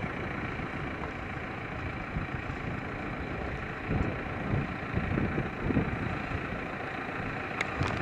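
Tractor engine running steadily while it pulls a twin-rotor hay rake, rowing up cut hay. Louder, uneven low rumbling comes in from about four seconds in, and a few sharp clicks sound near the end.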